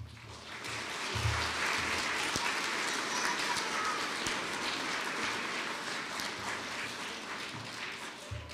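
A large audience of schoolchildren applauding. The clapping swells within the first second, holds steady, and tapers off near the end.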